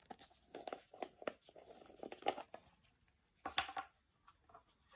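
Plastic peanut butter jar being opened by hand: faint scattered clicks and crinkly rustles in two short spells.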